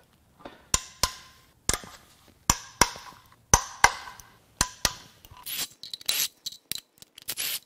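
Sharp metallic clinks and knocks, many in close pairs with a short ring, as hand tools and sockets work the perimeter bolts on an aluminium cylinder head. In the last couple of seconds a cordless power tool on the bolts gives short, denser high-pitched bursts.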